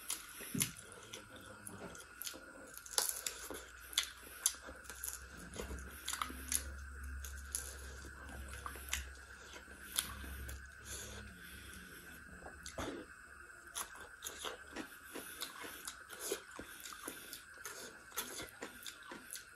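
Close-miked chewing of duck curry and rice eaten by hand, with many sharp, irregular crunches and mouth clicks.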